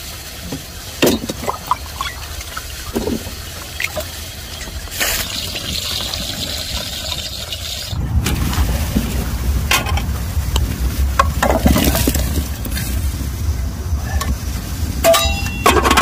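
Moringa pods being washed by hand in a metal bowl of water: small splashes and clinks. About halfway in it gives way to a steady low rumble at the wood-fired stove, with metal clinks from an aluminium pot lid, one of which rings briefly near the end.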